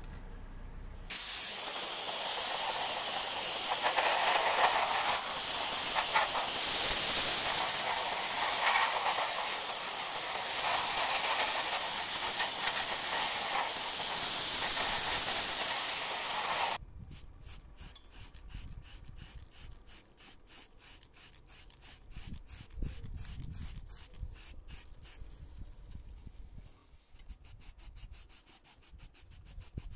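Abrasive work on rusty metal pump parts: a steady hissing rush that cuts off suddenly about a third of the way from the end, then quicker back-and-forth scraping strokes at about four a second, speeding up near the end.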